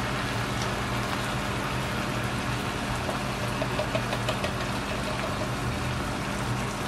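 Chicken and mushrooms sizzling steadily in a frying pan with scattered faint crackles as double cream is poured in over them, over a constant low hum.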